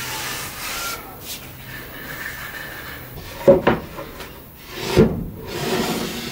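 A hand rubbing and sweeping across a hand-planed wooden tabletop, with a few light knocks on the wood about three and a half and five seconds in.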